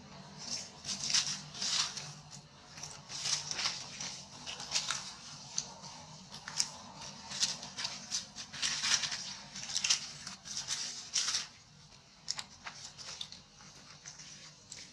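Dry leaf litter rustling and crackling in quick, irregular bursts as monkeys scuffle and move on the ground, thinning out near the end.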